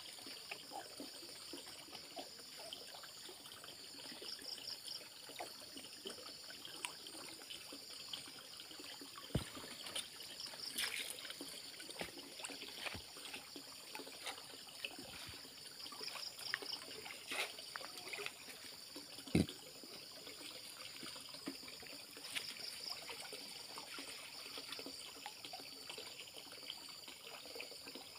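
Muddy pond water sloshing and trickling around a man wading waist-deep, feeling for fish by hand and with a dip net. A few sharper splashes or knocks stand out, the loudest about two-thirds of the way through.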